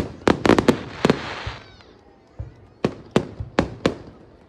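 Fireworks display: a quick cluster of sharp shell bursts, one followed by a crackling spray about a second in, then four more bangs in quick succession in the second half.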